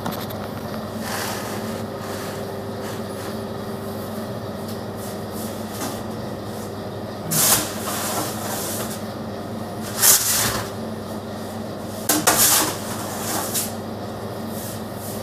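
Loaves of crusty bread being taken out and handled: three short scraping, clattering handling noises over a steady low hum.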